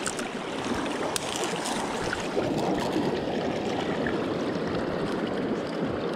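Swift river current rushing around a wading angler's legs, a steady wash of water, with a couple of sharp clicks about a second in.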